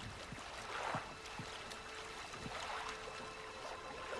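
Water lapping and sloshing against the hull of a wooden fishing boat in soft swells, with faint low knocks.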